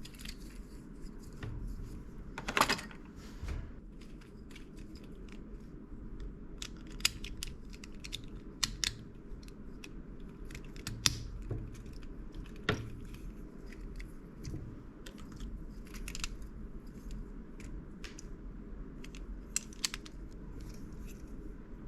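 Small plastic building bricks from an off-brand LEGO-compatible set clicking as pieces are handled and pressed together, in irregular sharp clicks over a steady low hum.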